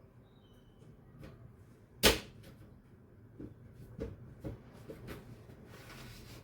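Panels being fitted back onto a Lian Li V100 PC case: a string of light knocks and clicks, with one sharp, loud knock about two seconds in and a short rustle near the end.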